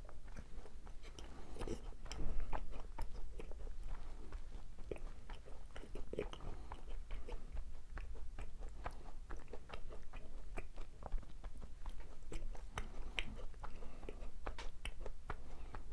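Close-miked chewing of macarons: soft biting and wet, crackly chewing with many small crunching clicks from the crisp meringue shells.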